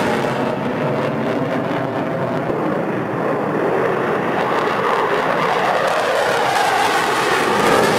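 F-15C Eagle fighter jet taking off on afterburner: loud, steady jet noise that swells a little over the last few seconds.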